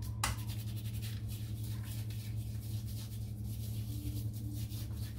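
Shaving brush being worked through soap lather: a quick, steady swishing of several strokes a second, over a steady low hum.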